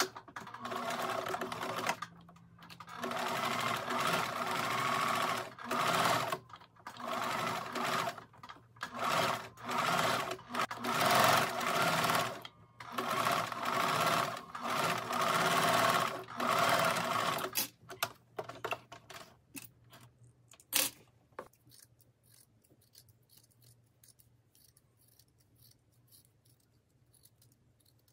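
Electric domestic sewing machine stitching the edge of a two-layer linen collar in a series of short runs, a second or two each, with brief stops between them. It stops a little over halfway through, and a few light clicks follow.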